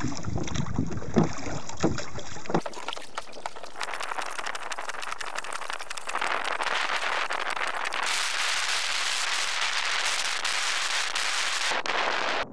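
Wind buffets the microphone at first. After a cut about two and a half seconds in, a steady hiss of water around a rowed dinghy takes over, with small clicks and knocks, growing louder in the second half.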